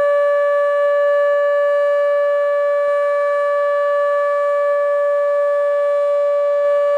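ATI HPSS32 electronic outdoor warning siren sounding a loud, steady single-pitch alert tone during a siren test. A much fainter tone slowly rises and falls beneath it.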